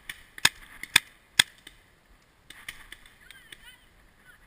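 Three sharp paintball marker shots, about half a second apart, followed by a few fainter pops.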